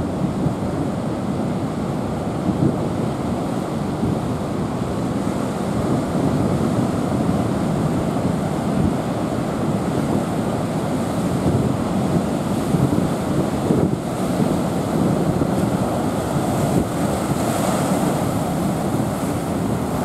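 Ocean surf breaking and washing around coastal rocks: a steady rushing wash that swells slightly now and then.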